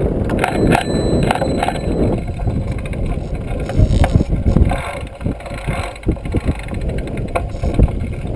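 Trail-a-bike in motion: rumbling wind and road noise on the handlebar-mounted camera's microphone, with scattered rattles and knocks from the bike over bumps.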